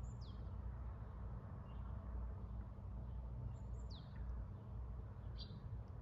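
Small songbird calling: thin, high notes that slide downward, one near the start and another about four seconds in, with a short high note just after. A steady low rumble runs underneath.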